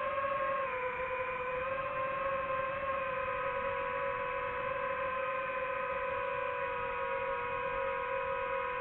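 DJI FPV drone's motors spinning Gemfan Hurricane 5236 propellers, a steady buzzing whine whose pitch dips slightly about a second in and then holds level.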